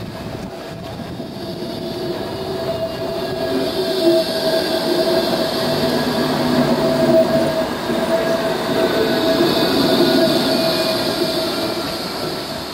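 Bombardier Incentro low-floor tram passing close by, its running noise with a steady whine growing louder to a peak in the middle and fading as it moves away.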